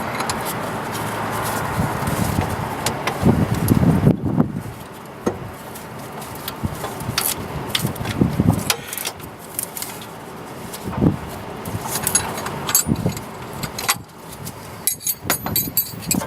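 Scattered light metallic clinks and rattles, with a few dull bumps, over steady outdoor background hiss; the clinks bunch together near the end.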